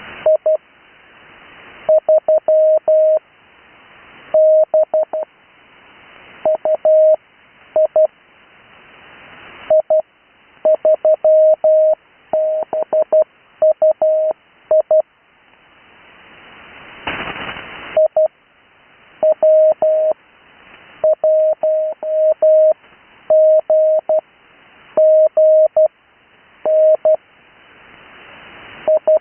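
Morse code (CW) sent as a single steady tone, keyed on and off in dots and dashes, spelling out amateur radio callsigns. A hiss swells in the pauses between characters, and a brief burst of static comes about 17 seconds in.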